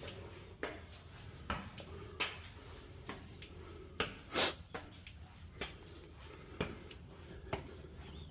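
A series of sharp, short knocks or taps at irregular spacing, about one a second, over a faint steady background.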